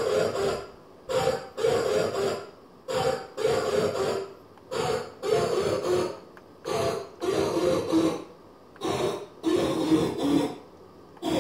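YSL-DG dog-bark sound-effect chip playing its electronic dog bark while run on less than 1 V, underpowered. The barks come in pairs, a short one then a longer one, repeating about every two seconds.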